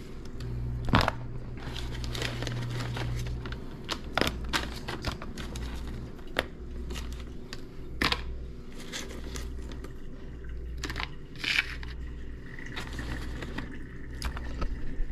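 Raw shrimp being handled on crumpled paper and dropped into plastic containers: paper crinkling with scattered light clicks and taps of shrimp and plastic.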